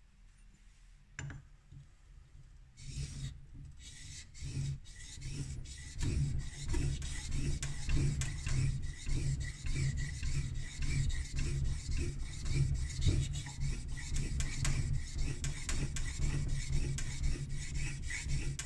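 The back of a laminated Japanese blade rubbed rapidly back and forth on a flat sharpening plate with abrasive grit, a gritty rasping scrape: uradashi, working the back flat. A single knock comes about a second in as the blade is set down; the strokes start a couple of seconds later and settle into a fast steady rhythm.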